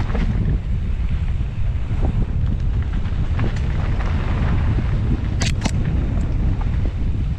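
Wind rumbling on the microphone during a fast mountain-bike descent on a dirt trail, with tyre and bike noise mixed in; two sharp clicks a little past halfway.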